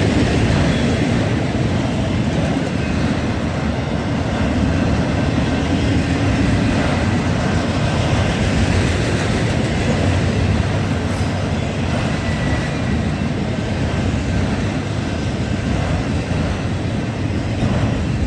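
Freight train cars rolling steadily past on the track: a continuous heavy rumble of steel wheels on rail, with a faint high whine from the wheels.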